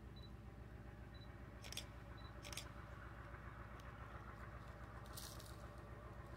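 Quiet outdoor ambience: a faint steady low rumble with a few soft rustles and clicks, and three faint high peeps about a second apart near the start.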